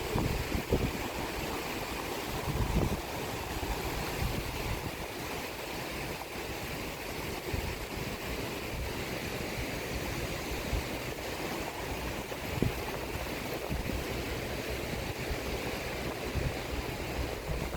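Sea waves washing on the shore as a steady rushing noise, with wind buffeting the microphone in low gusts and a few soft thumps.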